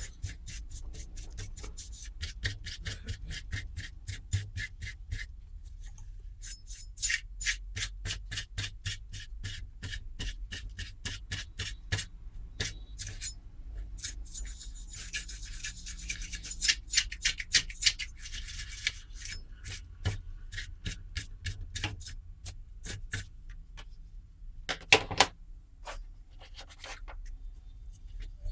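Dry paintbrush scrubbing accumulated dust off an induction cooktop's circuit board and aluminium heatsink: quick scratchy bristle strokes, about four a second, in runs with short pauses. Two louder knocks come a little before the end.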